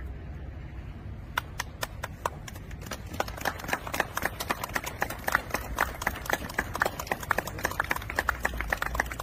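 A group clapping their hands. It starts as a few scattered claps about a second and a half in and builds into a steady run of many claps a second.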